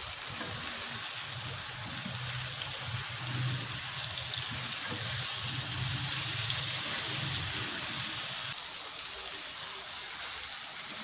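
Fried okra in onion-tomato masala sizzling in a frying pan as it is tossed and stirred with two wooden spatulas.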